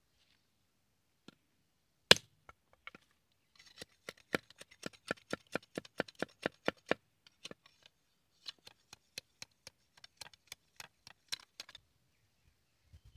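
Machete chopping at a green bamboo pole laid on a wooden stump: one sharp strike about two seconds in, then two runs of quick light chops, about four a second, with a short pause between them.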